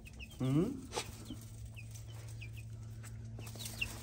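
Baby chicks peeping in a brooder, a steady run of short, high, falling cheeps. About half a second in, a brief low rising voice-like sound rises above them.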